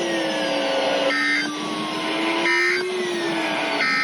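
Emergency Alert System end-of-message data bursts: three short raspy digital squawks about 1.4 s apart, marking the end of the weekly test. They play over receiver hiss with a slowly wavering whistle.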